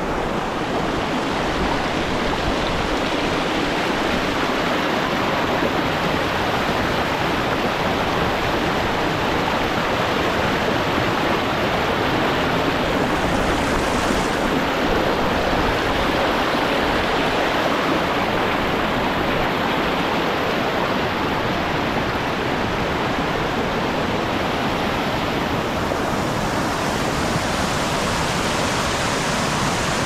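River water rushing over flat rock ledges and small cascades, heard close to the water: a steady, full rush of water.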